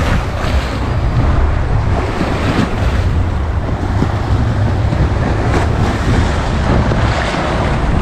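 Small sea waves breaking and washing in over the shore and against the sea-wall steps in a continuous rushing wash, with wind on the microphone.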